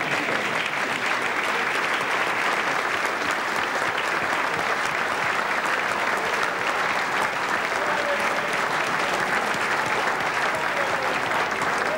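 Audience applauding steadily, a long sustained round of clapping from a large crowd.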